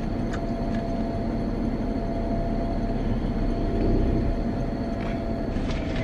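Steady low rumble and hum inside a minivan's cabin with the vehicle running, with one faint constant tone.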